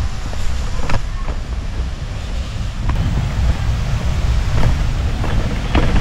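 Steady low roar of a powerful waterfall heard from a distance, mixed with wind rumbling on the microphone, and a few light footsteps on a dirt path.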